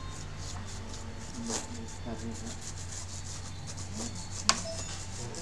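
Brush bristles sweeping across a laptop keyboard in quick repeated strokes, dusting the keys, with one sharp click about four and a half seconds in.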